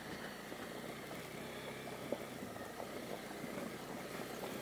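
Honda CB250R single-cylinder engine running at low speed with its tyres rolling over gravel, faint and muffled as heard from the rider's helmet, with one short sharp knock about two seconds in.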